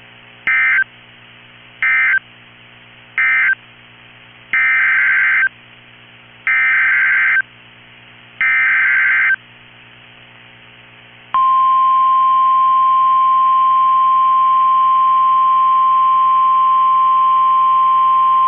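NOAA Weather Radio alert signalling: three short data-burst screeches closing the previous message, then three longer one-second screeches of the emergency alert header. About 11 seconds in, a loud steady warning alarm tone starts and holds, announcing an incoming tornado warning.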